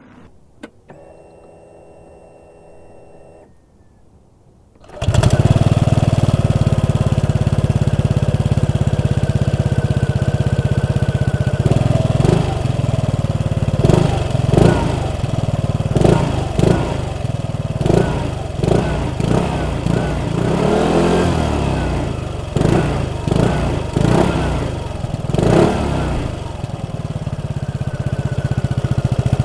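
2020 Vespa GTS 125 scooter's single-cylinder four-stroke engine starting about five seconds in, then idling with repeated short throttle blips.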